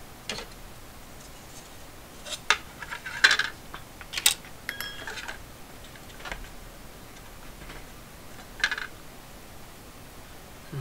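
Hard plastic calculator parts and small tools clicking and knocking as they are handled and set down on a tabletop: several separate taps, the loudest about three seconds in, with a short ringing clink around five seconds in.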